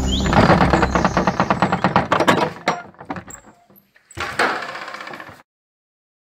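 Brass sliding bolt on a wooden door being worked by hand: a fast clatter of metal knocks that slows and fades over about three seconds, then a few single clicks and a second, shorter scraping rattle that cuts off suddenly.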